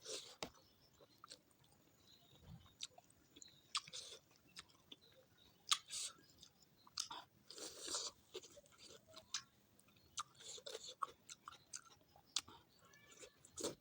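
Close-miked eating sounds: a person chewing and crunching food, with irregular sharp mouth clicks and a few louder crunchy bites.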